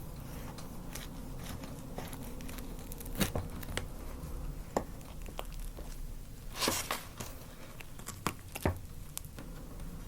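Paper food wrapper crinkling and tearing as it is handled and opened, with a few sharp crackles, the loudest a little past the middle.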